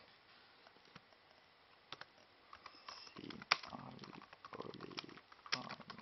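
Typing on a laptop keyboard: a few single key clicks, then a quick run of keystrokes from about three seconds in, mixed with rubbing and handling noise close to the microphone.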